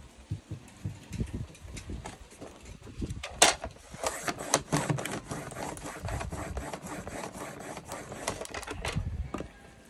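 Desktop paper trimmer cutting through a stack of folded notebook pages: paper being handled and shifted, a sharp click about three and a half seconds in, then several seconds of scraping with quick clicks as the blade is worked along the stack.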